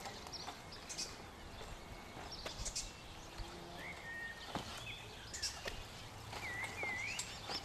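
Outdoor ambience with birds calling: scattered short chirps and whistled notes, with a run of rising and falling whistles near the end, over a low background hum and a few faint clicks.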